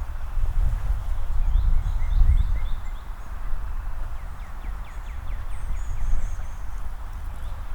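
Songbirds calling: short repeated chirps, then a quick run of about eight descending notes near the middle, with a few very high calls after. Underneath, the loudest sound is a steady low rumble.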